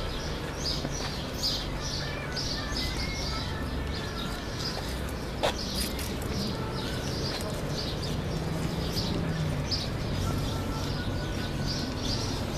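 A small bird chirping over and over, a few short high chirps a second, over a steady low hum, with one sharp click about five and a half seconds in.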